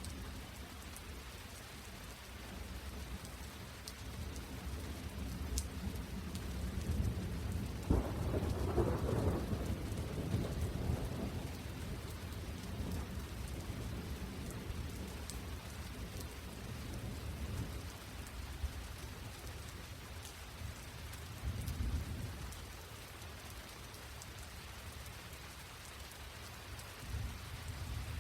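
Steady rain falling, with a long low rumble of thunder starting about eight seconds in and lasting a few seconds, and a shorter, fainter rumble later on.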